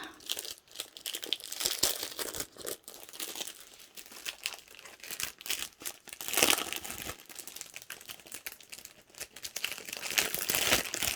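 Packaging crinkling and rustling in irregular strokes as it is handled and opened to unwrap photocards, loudest about six and a half seconds in.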